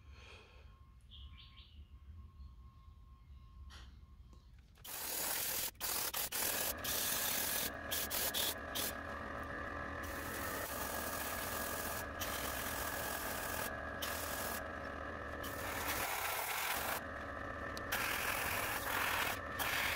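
Airbrush spraying opaque white acrylic base coat onto wooden crankbaits: about five seconds in a loud air hiss starts and runs on in long spells, cut off briefly several times as the trigger is released, over a steady hum.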